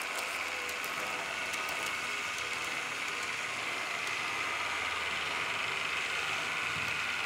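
Piko N-scale BR 442 Talent 2 model train running along the track: a steady whir from its motor and wheels, running through the stretch with two turnouts without stalling.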